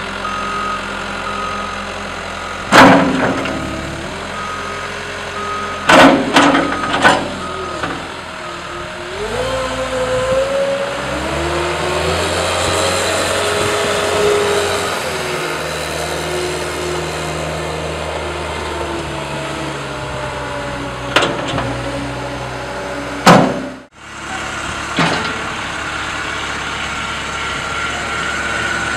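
Caterpillar 248B skid steer's diesel engine running as the machine drives and turns, revving up and settling back down midway, with several sharp, loud knocks. After a short break, the engine runs steadily again with a thin steady whine near the end, as the concrete mixer bucket turns.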